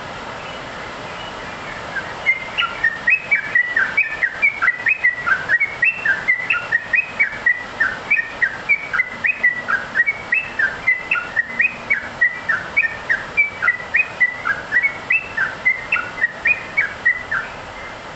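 Yellow-vented bulbul singing in full voice: a long run of short whistled chirps that jump up and down in pitch, about three a second, starting about two seconds in and stopping shortly before the end, over a steady background hiss.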